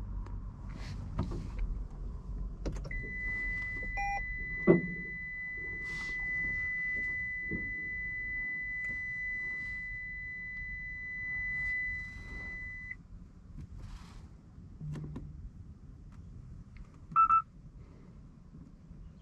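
Electronic beeps in a car: a steady high tone held for about ten seconds, a short beep and a thump about four to five seconds in, and two short beeps near the end.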